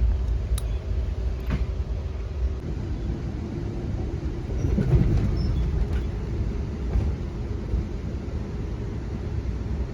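Steady low rumble of a moving passenger train heard from inside a car, with a faint steady hum and a few light clicks and rattles.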